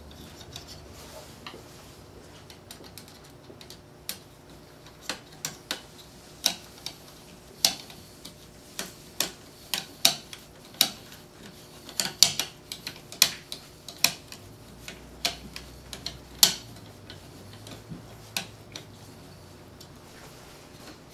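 Steel Allen key turning a socket-head screw into a metal saw guide by hand. It gives irregular sharp metallic clicks, about one or two a second, as the key is turned and reseated in the screw head.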